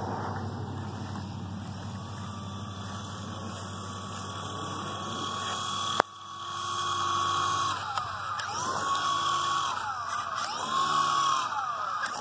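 Toy remote-control helicopter's electric rotor motor whining steadily, with a sharp click about halfway through. In the last few seconds the whine dips and rises in pitch several times as the throttle is changed.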